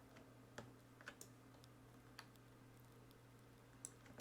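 Near silence with a low steady hum and a handful of faint, irregular clicks from computer use.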